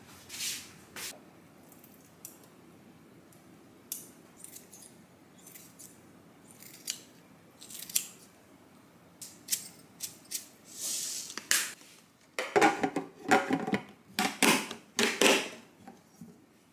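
Kitchen scissors snipping through green onion kimchi, a scattered series of short, sharp cuts. Near the end come louder knocks and clacks as the lid goes onto the stainless steel kimchi container.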